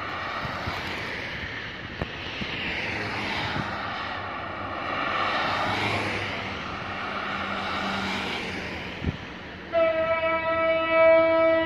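Cars passing on a road, their tyre and engine noise swelling and fading. About ten seconds in, a train horn starts a loud, steady blast of several tones.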